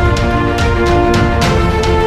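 Background music with a steady driving beat and sustained tones.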